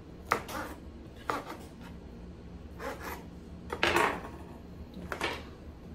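Kitchen knife cutting boiled chicken gizzards on a wooden cutting board: several irregular knocks of the blade on the board, sometimes two in quick succession.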